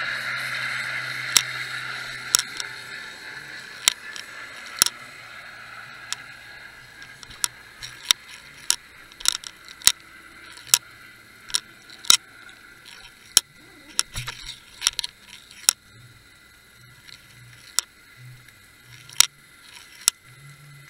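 Underwater sound recorded near the sandy bottom: sharp, irregular clicks and ticks, a couple of dozen of them, over a hiss that fades during the first few seconds. A faint steady high whine runs underneath, and a low hum pulses on and off near the end.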